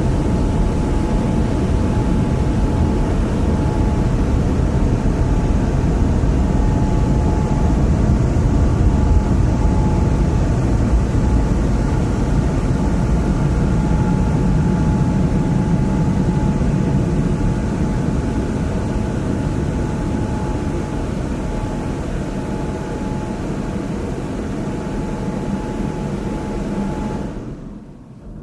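Automatic car wash heard from inside the car: a steady low rumble and rush with a faint steady whine through it. It eases off gradually in the second half, then cuts away quickly near the end.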